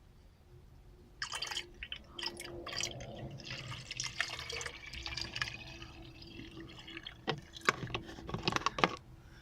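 Coolant being poured from a bottle into a car's coolant expansion tank, the liquid pouring and splashing from about a second in. A few sharp clicks and knocks near the end.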